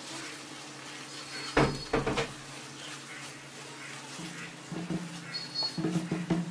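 Wooden spatula stirring and scraping a grated carrot and paneer mixture in a nonstick pan, with a few sharp knocks about a second and a half in and another cluster near the end. A steady low hum and faint sizzling run underneath.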